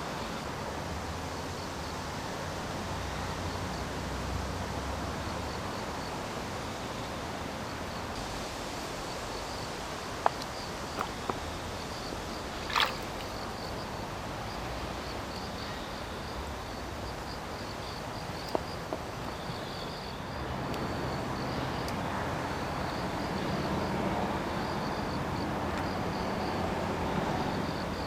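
Outdoor ambience of insects chirping steadily in a high, fast pulse over a steady rushing noise that swells a little about two-thirds of the way through, with a few faint clicks and one short sharp sound in the middle.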